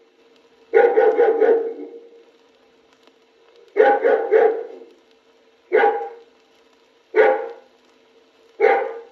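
A dog barking in five separate bouts: the first two are quick runs of several barks, the later ones single barks. A faint steady hum runs underneath.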